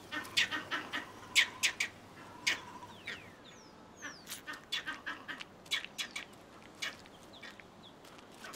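Vervet monkeys chattering in rage: an irregular run of short, harsh calls, thickest in the first second and a half and again around the middle.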